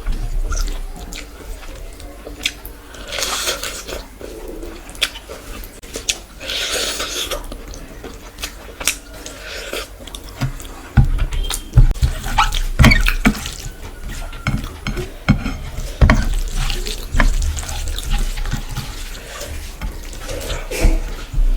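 Close-miked wet eating sounds: chewing and squelching of rice and curry gravy, with sharp smacks and clicks. Occasional low thumps come in from about halfway.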